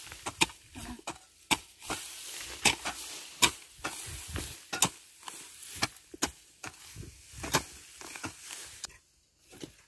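Hand hoe chopping into dry terrace soil and grass clumps, a crunching strike every half second to a second with scraping in between; the strikes stop shortly before the end.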